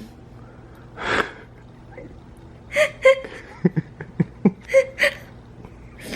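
A person's sharp breath about a second in, then a run of short, sudden vocal sounds, several close together, from about three to five seconds in.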